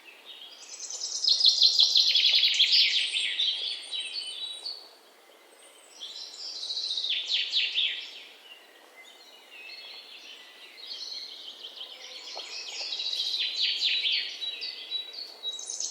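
Songbirds singing: high-pitched phrases of rapid chirping notes and trills, coming in three main bursts with quieter pauses between them.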